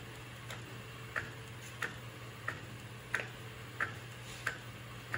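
Epson P405 DTF printer printing on roll film, its print head carriage shuttling back and forth with a sharp click about every two-thirds of a second over a steady low hum.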